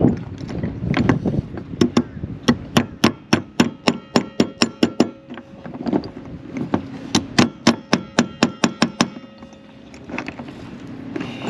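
Hammer striking metal in two runs of quick, even blows, about four a second, each strike ringing, with handling noise between the runs.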